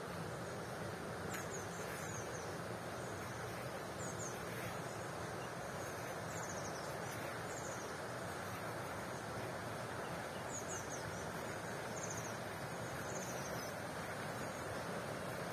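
Steady outdoor rushing background noise, with faint high, thin chirps from small birds, in twos and threes every second or two.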